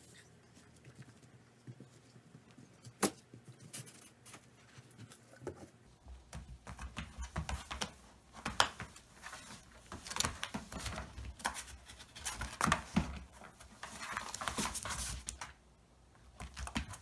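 Corgi rummaging in a cardboard box: cardboard scraping and rustling, with scrabbling claws, in a dense run of quick scratchy noises from about six seconds in until shortly before the end. Before that it is quiet apart from one sharp click.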